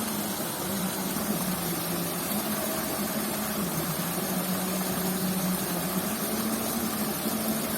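Steady rush of water flowing in a ditch, with a steady low mechanical hum like a motor running.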